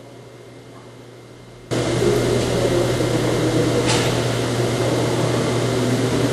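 Steady mechanical hum with a constant low drone, cutting in suddenly about two seconds in after faint background noise, with one brief sharp click near the middle.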